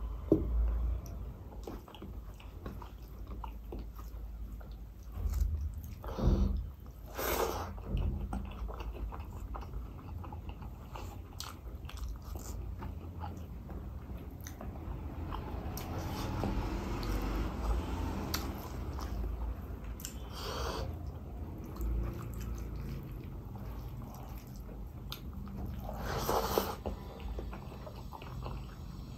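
Close-miked chewing and wet mouth sounds of a person eating rice mixed with lentil dal by hand, with a few louder smacks scattered through.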